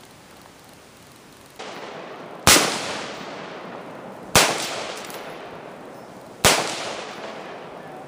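Rifle shots: three sharp reports about two seconds apart, each followed by a long echoing tail.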